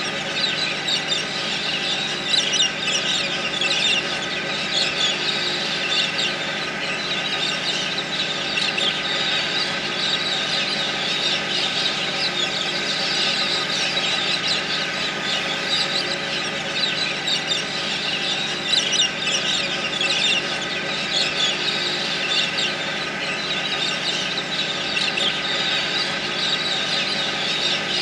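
A flock of galahs calling non-stop, a dense chatter of many short, high screeches, over a steady mechanical hum.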